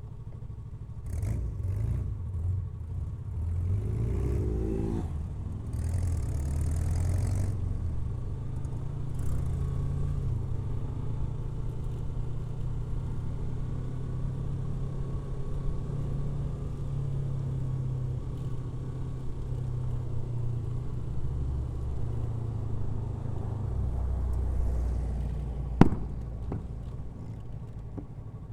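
Yamaha R3's parallel-twin engine running steadily as the motorcycle is ridden, with the revs rising briefly about four seconds in and a short hiss of air around six seconds. A single sharp click near the end is the loudest moment. The rider fears the engine has started vibrating more than usual.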